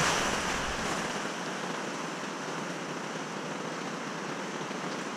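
River rapids rushing around a kayak, heard from a camera just above the waterline; loudest in the first second as a wave washes over the camera, then a steady rush of moving water.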